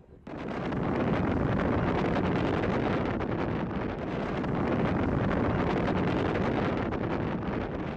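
Strong wind rumbling on the phone's microphone, with shallow surf washing in over the sand; the steady noise cuts in suddenly just after the start.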